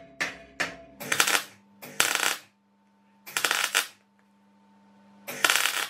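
A couple of hammer taps on a steel flat bar, then four short bursts of arc-welding crackle: tack welds, each about half a second long, with a steady low hum between them.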